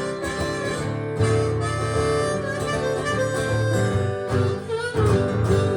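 Blues harmonica (harp) wailing held notes over strummed acoustic guitar, playing out the song's closing bars.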